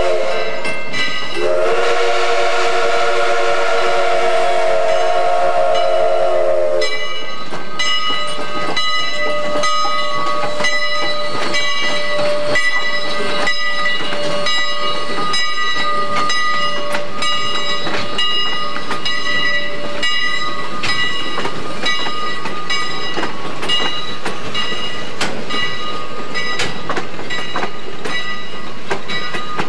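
Ex-C&NW steam locomotive #1385 blows one long whistle of several notes at once, starting about a second and a half in and lasting about five seconds. The passenger train then rolls past, its wheels clicking steadily over the rail joints under a steady high-pitched ringing.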